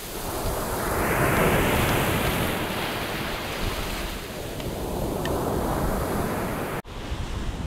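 Sea surf washing up the sand close to the microphone: the rush of a wave's foam swells about a second in, then slowly ebbs back. Wind buffets the microphone underneath, and the sound breaks off abruptly near the end.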